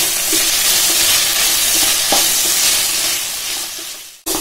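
Sliced onions and ginger-garlic paste sizzling in hot gingelly (sesame) oil in a kadai, stirred with a wooden spatula, with a few short scrapes. The sizzle fades and cuts off briefly near the end.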